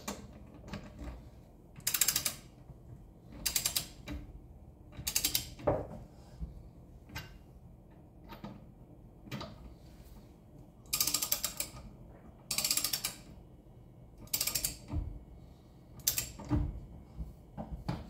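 Ratchet wrench clicking in several short bursts of back-strokes as lug nuts are run down snug on a steel car wheel, with a quieter stretch of a few seconds near the middle.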